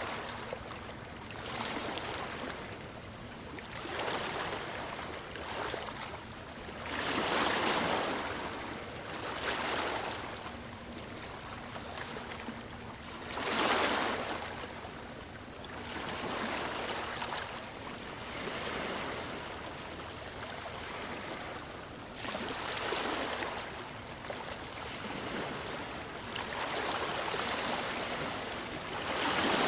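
Ocean waves breaking on a beach, the surf swelling and falling back every couple of seconds, with two bigger breakers about a quarter and halfway through.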